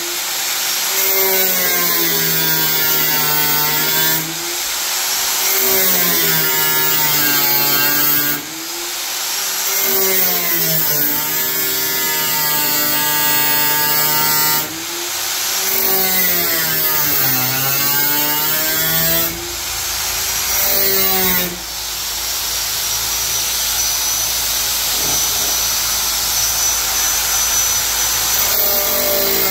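Angle grinder cutting through the Jeep Cherokee's steel hood panel, its motor pitch sagging under load and climbing back as the pressure eases, with several brief lifts along the cut.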